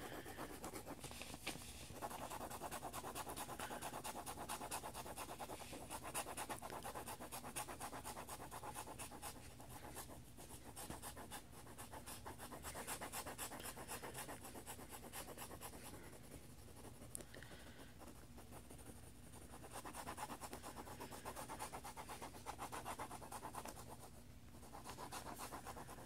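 Mechanical pencil lead scratching rapidly back and forth on lined paper, shading it in with quick even strokes, with a few short pauses.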